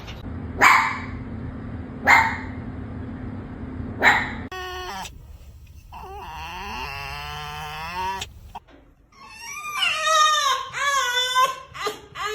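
Fox vocalising: three short harsh calls about a second and a half apart, then a drawn-out whine and a run of wavering, whimpering cries near the end.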